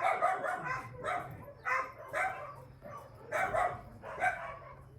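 Dog barking repeatedly, short barks about half a second apart with a brief pause midway.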